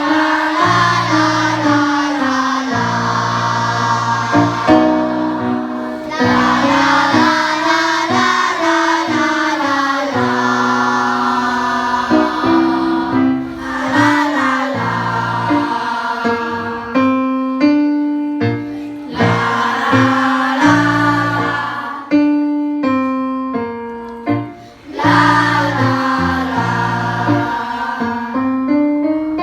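A group of voices singing vocal warm-up exercises: short sung phrases repeated one after another, with piano notes in the gaps between them.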